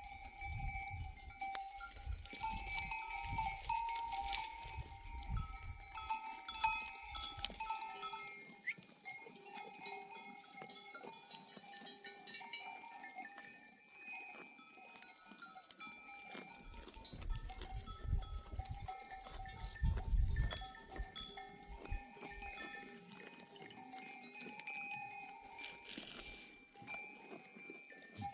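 Many bells on a flock of sheep ringing and clanking together as the animals move. A low rumble comes and goes underneath.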